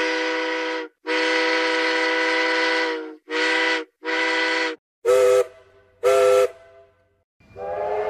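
Steam locomotive chime whistle sounding a chord of several tones in separate blasts: the tail of one blast, a long blast of about two seconds, then two short ones. Two short, louder blasts with a different tone follow, and near the end another whistle begins a steady chord.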